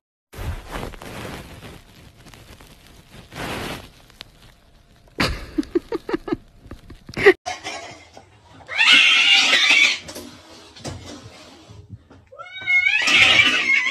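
Domestic cats crying out across short clips: scattered knocks and rustles, then a loud harsh cry, and a wavering meow with a bending pitch near the end.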